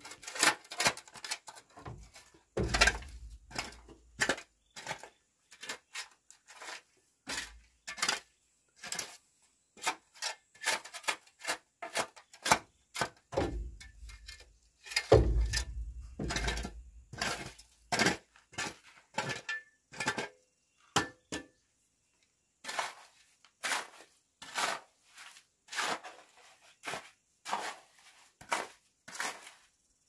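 Irregular series of sharp clinks and knocks of hard objects striking one another, about one or two a second, with heavier thuds a few seconds in and again about halfway.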